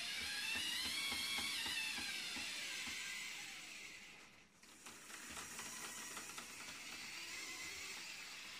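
LEGO electric motors whining through plastic gear trains, the pitch rising and falling as the mechanisms move. About halfway through the whine drops away briefly, then resumes more quietly with faint gear ticking.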